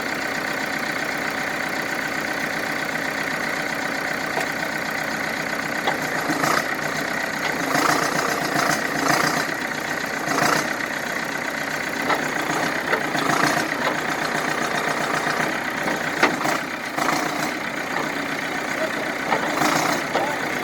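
Heavy equipment engine running steadily. From about six seconds in, its level rises and falls unevenly, with short sharp clanks.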